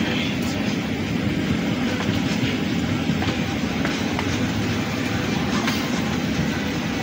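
Steady low rumbling cabin noise inside a parked airliner during boarding, with a faint click now and then.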